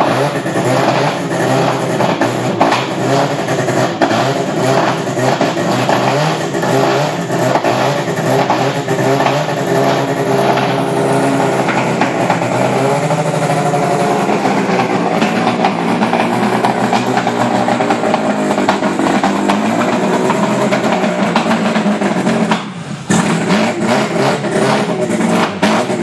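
Loud racing-car engine noise, with the pitch wandering up and down as the engines rev, and a brief dip about 23 seconds in.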